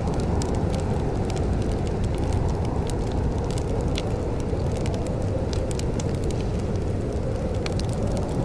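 Wood fire in a fireplace crackling, with irregular sharp pops several times a second over a steady low rumble.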